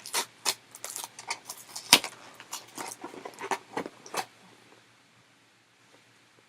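Quick small clicks and rattles of hard plastic being handled, as a fashion doll and her accessories are worked out of their packaging, lasting about four seconds before it goes quiet.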